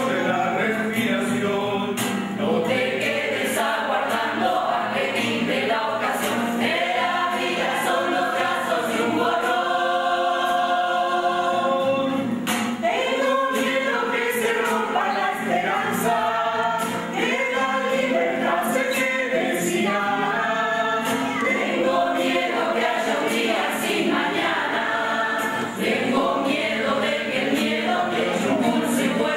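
A choir singing in several parts, with a long held chord about ten seconds in.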